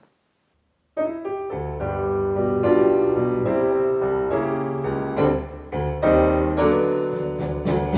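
Piano music begins about a second in, with chords and melody notes, played back through a Fosi Audio TB10D amplifier and speakers as a sound test.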